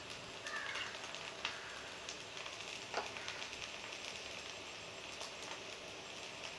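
Bamboo-shoot and rice-batter fritters frying in mustard oil on a nonstick tawa: a steady sizzle with scattered crackles and a few sharper pops.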